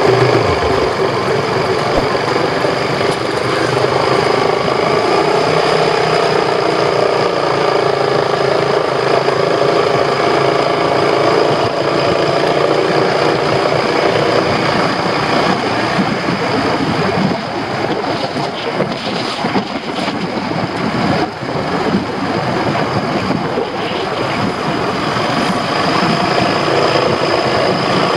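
Yamaha XMAX scooter's engine running steadily while riding, with wind rushing on the microphone; the level dips slightly a little past the middle.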